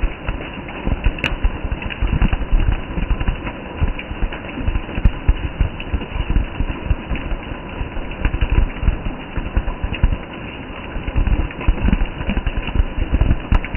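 Steady rain falling on trees and broad-leaved undergrowth: a continuous hiss with a dense patter of individual drops.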